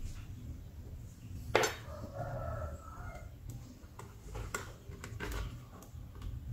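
Light clicks and knocks of speaker wires being fitted into an amplifier's speaker terminals, the loudest a sharp click about one and a half seconds in. A rooster crows faintly for about a second just after it.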